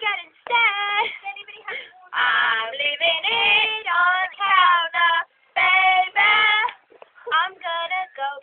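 Schoolgirls singing a cappella: sung phrases with held notes and short breaks between them.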